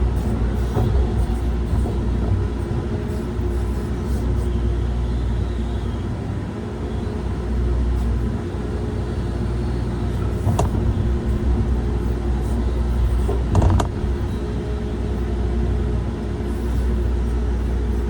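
A heavy machine's engine running steadily under load, with two sharp knocks about three seconds apart in the second half.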